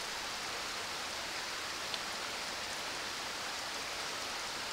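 Steady, even wash of water noise with no change in level, with a single faint tick about two seconds in.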